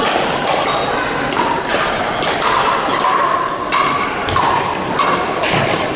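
Pickleball paddles striking the plastic ball: repeated sharp pops, about two a second and irregular, echoing in a gymnasium.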